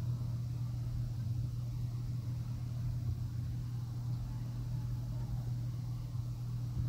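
A steady low hum, as from an electric motor or appliance running.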